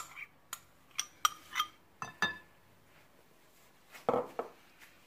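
Metal spoon clinking and scraping against glass bowls while yogurt is scooped out: a run of sharp clinks in the first couple of seconds, then a louder knock about four seconds in.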